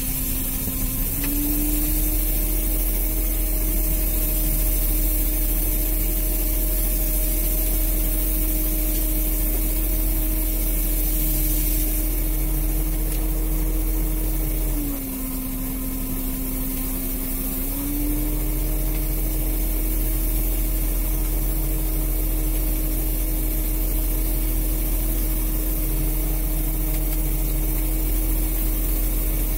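A longline fishing boat's engine and line hauler running steadily as the longline is hauled in. The steady hum steps up in pitch about a second in, drops lower for about three seconds midway, then rises back, over a constant hiss of sea and wind.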